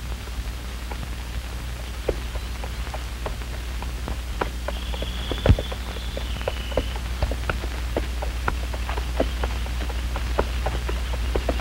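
Surface noise of an old optical film soundtrack: a steady low hum with scattered, irregular clicks and crackles, the loudest about halfway through.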